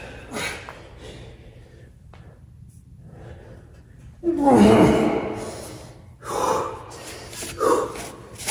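A man breathing hard from the strain of pull-ups, with a loud, strained groan falling in pitch about four seconds in, followed by two heavy exhales.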